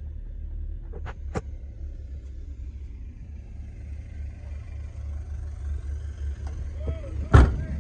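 Low steady rumble of the 1999 Nissan Frontier's engine idling. Two short clicks come about a second in, and a single loud thump near the end.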